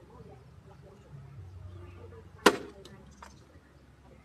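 A person struck once with an empty plastic water bottle: a single sharp smack about halfway through, followed by a couple of faint plastic clicks.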